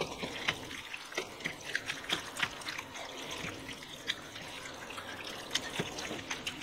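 A spatula stirring ground beef and tomato-sauced penne in a metal sheet pan: wet squishing and slopping, with scattered small irregular clicks of the spatula against the pan.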